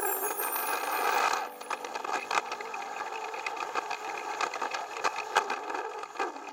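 Plarail battery-powered toy train running fast over plastic track: its small motor whirs while the wheels clatter with rapid, irregular clicks and rattles over the track joints and points.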